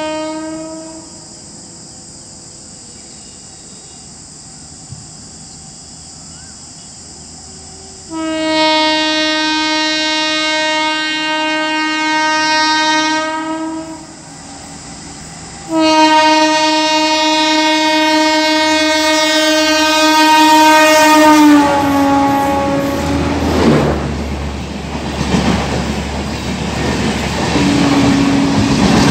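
Indian Railways electric locomotive horn giving a brief toot and then two long steady blasts as the express approaches. The horn note drops in pitch as the locomotive passes, then the rumble and clickety-clack of the passing coaches, with one more short horn note near the end.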